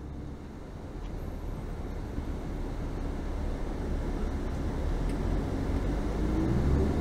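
A vehicle engine rumbling steadily and gradually getting louder, with a faint rising whine near the end.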